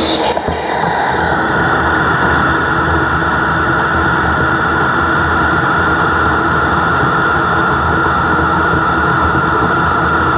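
Mazak manual lathe turning a large 17-4PH stainless steel part: the tool cutting steadily under the machine's running noise, with a high whine that drops slightly in pitch over the first second and then holds steady.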